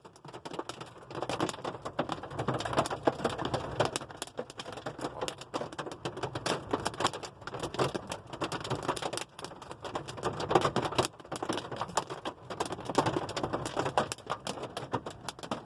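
Hailstones, some about golf-ball size, falling hard: a dense, irregular clatter of sharp ticks and knocks.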